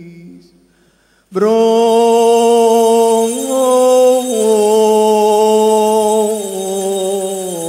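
A man's voice chanting a long, held note of Syriac liturgical chant, starting after a brief silence about a second and a half in. The note steps up briefly about halfway through and then drops back before fading near the end.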